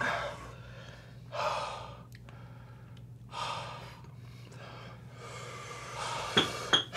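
A man breathing hard through his mouth against the burn of an extremely hot chili sauce, with sharp gasping breaths about every two seconds and a longer exhale near the end. Two short clicks, like mouth or lip smacks, come just before the end.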